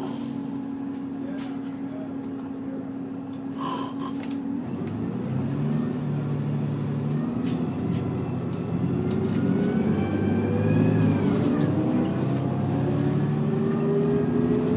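Bus engine heard from inside the cabin: a steady hum, then from about five seconds in the bus pulls away and the engine tone rises in steps as it accelerates, with a whine gliding up and down above it.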